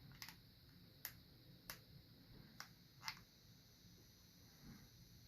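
Faint clicks of ceiling-fan remote-control buttons being pressed, about five presses spaced irregularly over the first three seconds.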